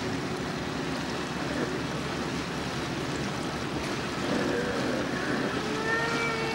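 Canal tour boat under way: steady engine and water noise with some wind on the microphone.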